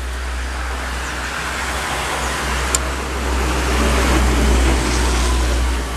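Road traffic: a passing motor vehicle's engine and tyre noise, swelling about four seconds in and easing near the end, with one brief sharp click near the middle.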